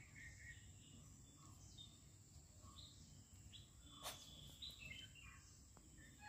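Near silence: faint outdoor background with a few short, distant bird chirps and one faint click about four seconds in.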